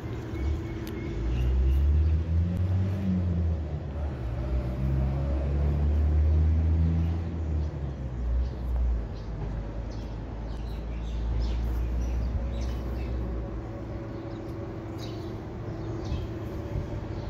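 Low engine rumble of a motor vehicle running nearby, loudest for the first half and then fading. Later, short faint crisp clicks of a cat crunching dried fish.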